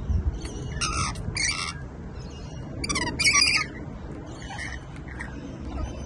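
Rainbow lorikeets giving short, harsh screeching calls, a few in quick succession, loudest about three seconds in and fainter near the end.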